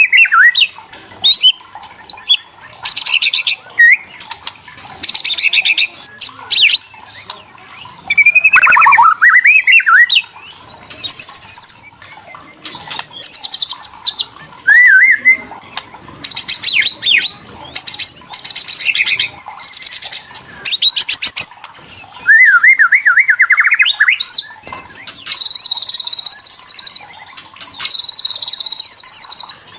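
White-rumped shama (murai batu) singing in short bursts. Harsh, rapid rattling chatters (kretekan) alternate with clear whistled notes that slide up and down, and a wavering trill comes a little past the middle.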